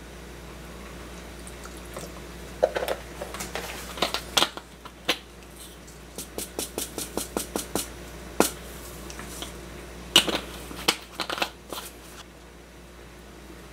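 Hand-and-utensil sounds of food preparation: scattered sharp taps and clicks, with an even run of about three light taps a second midway.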